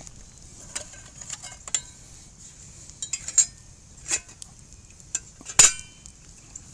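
Metal camp cookware being handled: scattered clinks and knocks, some with a short metallic ring, the loudest a sharp clank near the end.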